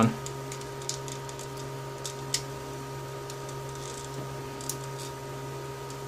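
A few light plastic clicks from an RJ21 connector's hood and strain-relief clip being worked and snapped onto the cable jacket, the clearest about two seconds in, over a steady electrical hum.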